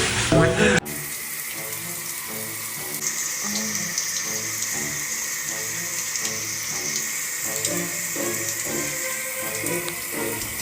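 Water running steadily from a tap into a sink, a constant hiss that starts suddenly about a second in, with quiet music underneath.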